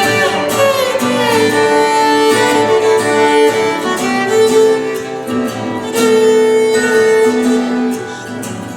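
Instrumental break in a live song: a bowed violin plays long held notes, sliding down in pitch early on, over acoustic guitar accompaniment.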